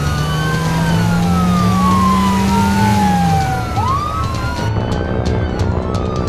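Police car sirens wailing, two or more overlapping, each pitch rising fast and then sliding slowly down, over a low engine hum that drops away about halfway through. Quick faint ticks come in near the end.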